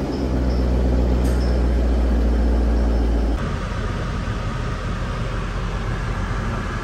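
C5 Corvette's 5.7-litre V8 idling steadily just after being remote-started, heard from behind the car. About three and a half seconds in the sound cuts to the same engine idling as heard from inside the cabin, duller and less even.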